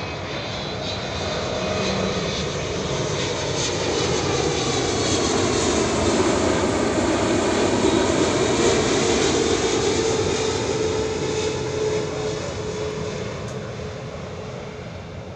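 Boeing 777-300ER's twin GE90 turbofans on approach thrust, passing low overhead: the jet noise swells to a peak about halfway through and then fades as the airliner moves away, with a whining tone that falls slightly in pitch as it passes.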